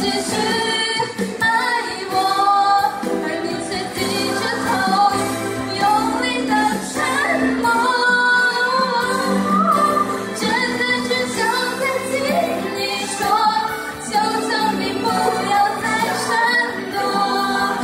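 A woman singing a Mandarin pop song live into a handheld microphone, with instrumental accompaniment under her voice.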